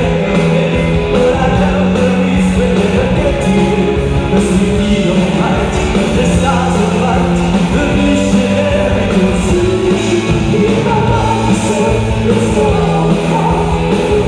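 Live rock band playing: drum kit keeping a steady beat with bass, guitars and keyboards, heard from the audience in a concert hall.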